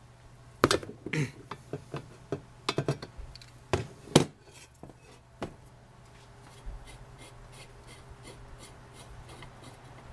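An antique brass blowtorch being handled on a table: a run of sharp metal knocks, clicks and scrapes as its pump knob and fittings are gripped and worked, then a faint, even ticking of about three or four a second.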